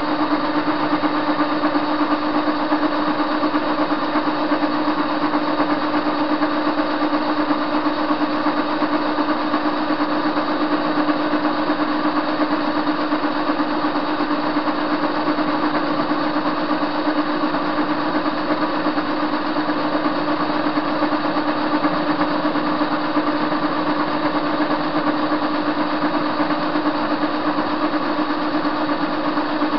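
Soviet-era TV-16 metal lathe running steadily while turning a metal blank: an even machine hum with a strong constant low tone and fainter higher whines from the motor and gearing, no change in speed.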